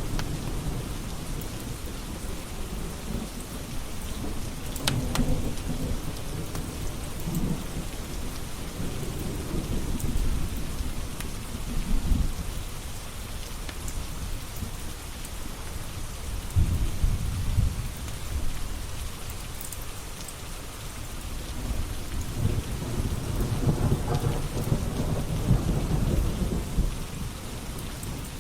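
Steady heavy rain with rolling thunder, several low rumbles swelling and fading, the longest one near the end.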